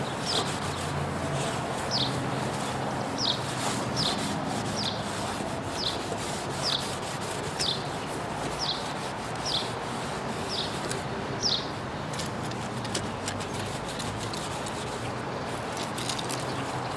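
A lemon half coated in baking soda rubbed back and forth over a cloudy plastic headlight lens, a steady scrubbing rub. A short high chirp repeats about once a second through the first eleven seconds or so.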